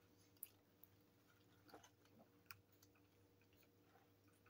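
Near silence with faint chewing and a few soft clicks as people eat, over a faint steady hum.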